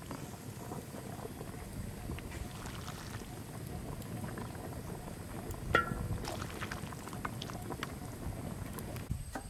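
Chicken soup simmering in an earthenware pot, a low steady bubbling with faint small ticks. A single metallic clink rings briefly just past halfway.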